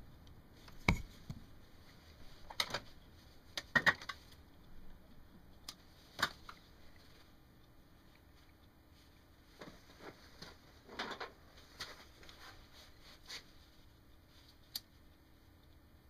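Irregular small clicks, taps and light rustles of hands handling wires, diode leads and a soldering iron at a bench vise, with the sharpest clicks about a second in and just before four seconds. A faint steady hum sits underneath.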